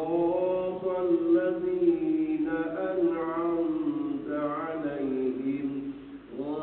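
A man's voice chanting Quranic recitation aloud in Arabic, melodic with long held, wavering notes, pausing briefly near the end.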